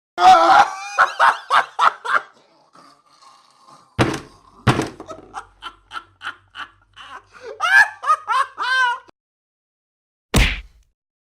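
A string of short sound effects: a burst of laughter, then two sudden thumps about four seconds in, more laughter, and a last sharp hit near the end.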